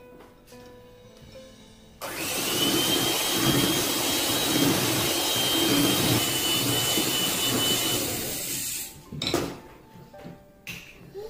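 Electric hand mixer switched on about two seconds in, running steadily with a high whine for about seven seconds as its beaters mix flour into chocolate brownie batter in a glass bowl, then switched off abruptly.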